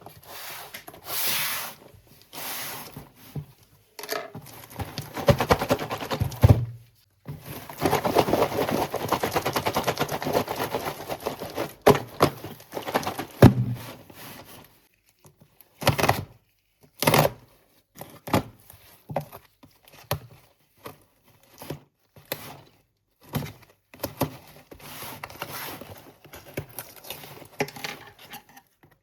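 A slate pencil pack being unboxed: crinkling and tearing of the packaging in two long stretches. After that come scattered sharp clicks and knocks as it is handled.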